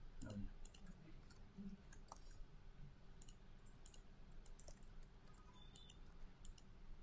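Faint computer mouse clicks, many in irregular succession, over a low steady hum.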